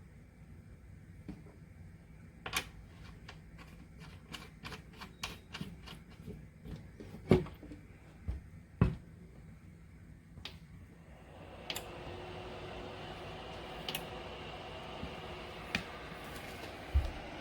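A run of irregular clicks and knocks, then, about two-thirds of the way in, the steady rush of a small PTC ceramic space heater's fan blowing.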